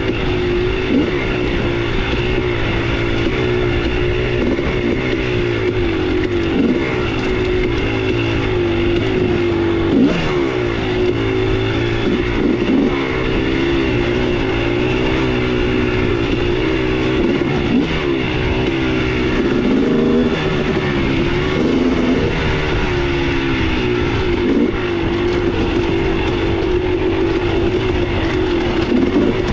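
MC250 dirt bike engine running under the rider, its revs rising and falling over and over with the throttle on slow trail riding. Wind rush on the uncovered microphone runs underneath.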